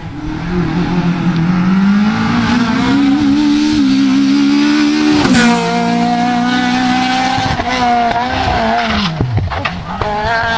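Rally car engine at full throttle, the revs climbing steadily, then dropping sharply about halfway before holding high again. Near the end the pitch dips deeply and comes back up as it goes by, with a few sharp cracks.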